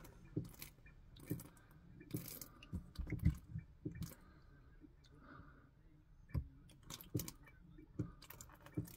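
Faint, irregular small clicks and knocks of a screw being handled and fitted against a water pump's mounting bracket.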